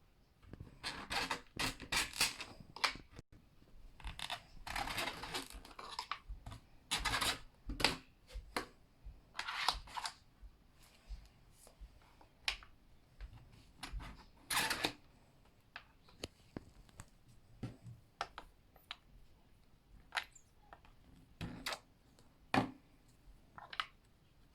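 Hands working a toy screen-printing kit, with a series of short, irregular scrapes, rustles and clicks.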